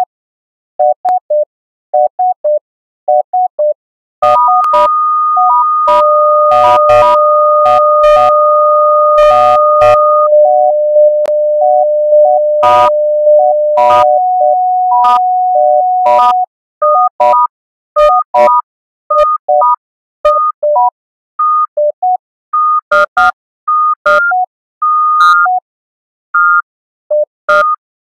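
Kinect-controlled virtual monome sequencer built in Pure Data playing short pure-tone electronic beeps in a stepping pattern over a few pitches. From about four seconds in, two held tones at different pitches sound for several seconds under the beeps, with sharp clicks. A third held tone follows and cuts off around sixteen seconds, and the short beeps carry on alone.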